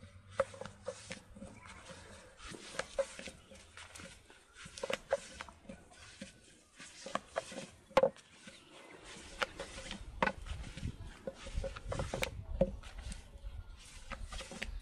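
A thin wooden rolling pin rolling qutab dough out on a wooden board: irregular clacks and knocks of the pin against the board, with soft rolling scrapes between them.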